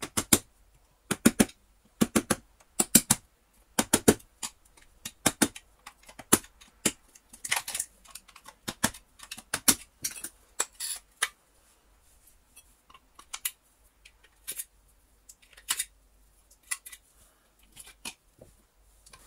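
Sharp hammer taps, often in quick pairs, knocking the field coil out of a Miele vacuum cleaner motor's plastic housing. After about six seconds they give way to sparser, lighter clicks and clatter as the loosened coil is worked free with a screwdriver.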